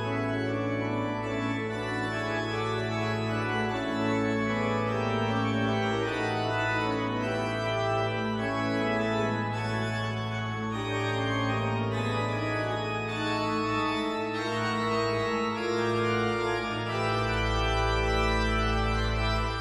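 Pipe organ playing dense, sustained chords over a held pedal bass note. A deeper pedal note comes in near the end.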